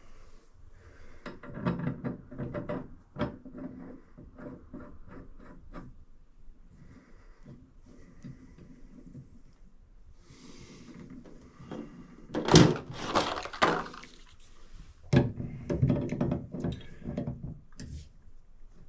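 Irregular knocks, clicks and clatter of faucet parts and hand tools being handled during reassembly, loudest in a cluster of knocks past the middle.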